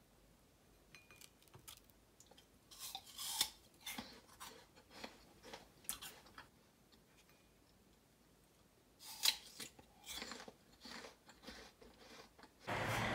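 Crisp apple slices being bitten and chewed: irregular crunching in two bouts, the first about two seconds in, the second about nine seconds in.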